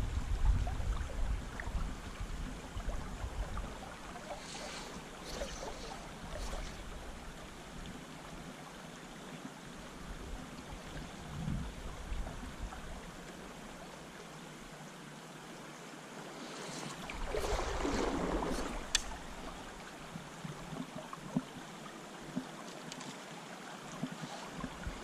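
Shallow river running steadily over a riffle, an even rush of water. About two-thirds of the way through there is a brief louder swell of noise with a few sharp clicks.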